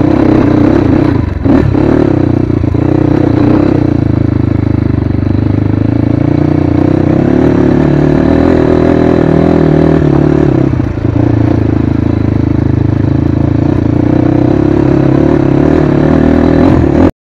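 Crossfire HJ250 dirt bike's engine running steadily under throttle on a rough rocky trail, easing off briefly about a second and a half in and again around eleven seconds. It cuts off abruptly near the end.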